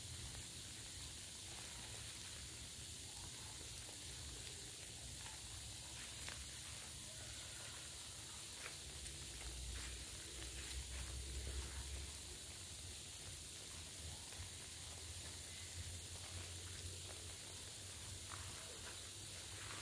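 Faint steady hiss of the open-air background with a low rumble that swells about halfway through, and a few soft crackles of dry banana leaves being handled around the base of a young durian tree.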